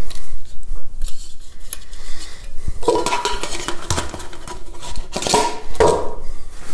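Parts of a Jetboil-style gas-burner cooking system being handled and fitted together: metal clinks, knocks and scraping of the burner and the pot with its finned heat-exchanger base, with a brief metallic ring about three seconds in.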